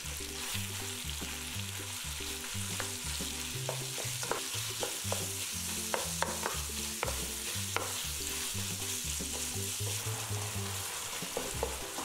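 Pork sizzling steadily as it is stir-fried over high heat in a hot oiled pan with chilies and garlic, with repeated sharp clicks and scrapes of a spatula against the pan as it is stirred.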